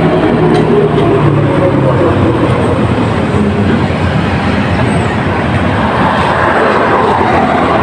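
Road vehicle noise: a low engine hum that fades out over the first second or two, then a steady rushing noise that swells a little near the end.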